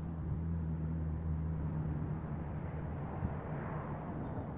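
Steady low hum of a distant motor, fading about three seconds in.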